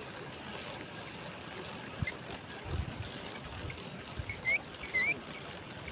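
Water lapping and rippling against a rocky riverbank, with a few small clicks and two short rising chirps near the end.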